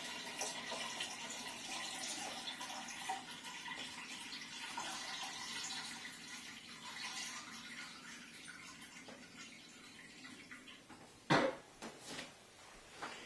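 Water running from a reverse osmosis filter faucet into a glass measuring jug, a steady stream that slowly gets quieter and then stops. A sharp knock follows about eleven seconds in, with a couple of lighter knocks after it.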